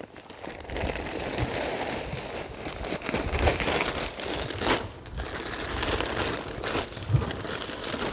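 Plastic bag of mushroom compost crinkling and rustling as compost is tipped out of it into a plastic worm farm tray, with a couple of sharper crackles partway through.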